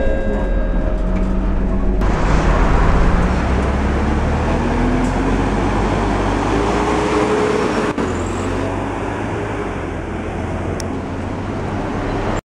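Scania K310UD double-decker bus diesel engine: heard briefly from inside the bus, then from the roadside as the bus pulls away, its engine note rising as it speeds up, then running more steadily near a bus stop. The sound cuts abruptly twice.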